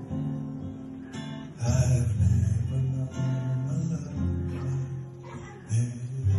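Acoustic guitar played live, chords strummed and left ringing in an instrumental passage with no singing.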